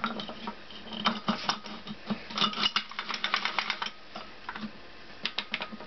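Metal clutch plates clicking and rattling against the clutch basket of a Honda CX500 engine as they are fitted by hand. There are rapid clusters of light clicks, busiest in the middle, and a few single clicks near the end.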